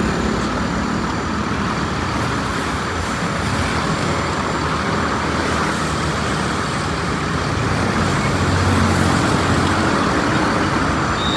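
Hino AK240 bus's front-mounted diesel engine running as the bus pulls forward slowly: a steady engine note that grows a little stronger about eight seconds in.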